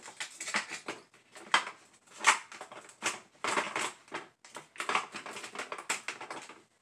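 Ice cubes being twisted and cracked loose from a plastic ice cube tray: irregular crackling and snapping, with a few louder cracks.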